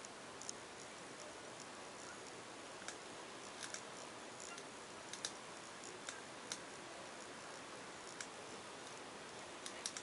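Irregular, short, sharp clicks of a computer mouse being clicked to move between web pages, about a dozen spread unevenly, with a few close together near the middle and just before the end, over a faint steady hiss.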